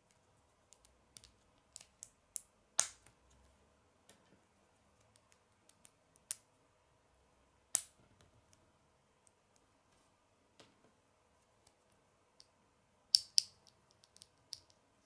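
Small plastic Lego pieces clicking as they are handled and pressed together: scattered sharp clicks, the loudest about three seconds in, near eight seconds, and a close pair near the end.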